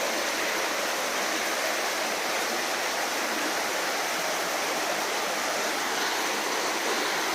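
A stream flowing steadily through a tunnel: an even, continuous rush of running water.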